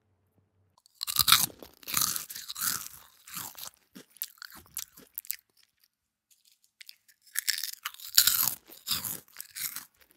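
Close-up crunching of cornflake cereal with yogurt being chewed: a bout of crisp crunches starting about a second in, a pause of about two seconds, then a second bout of crunching.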